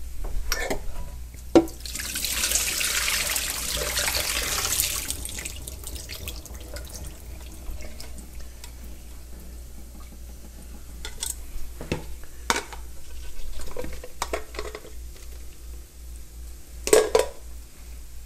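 Kitchen tap running into a sink for about three seconds, then a few sharp knocks of a metal pot being handled near the end.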